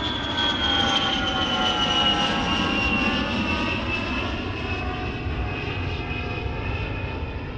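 Twin-engine jet airliner taking off, its engines running loud with a high whine that falls slowly in pitch.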